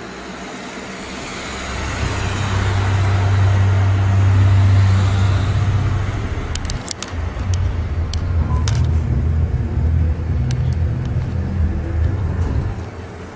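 A loud, low rumbling drone that swells in about a second and a half in, wavers, and cuts off near the end, with a handful of sharp clicks in the middle, of the kind reported as unexplained sounds from the sky.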